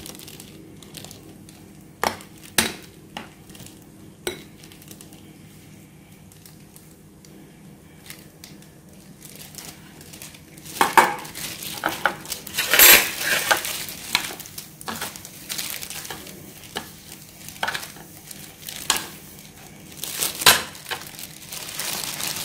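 Metal tongs clinking and scraping against a ceramic bowl while chicken is turned in thick batter, with the rustle of breadcrumbs being pressed onto the chicken. The clinks are sparse at first and come thick and fast from about halfway through.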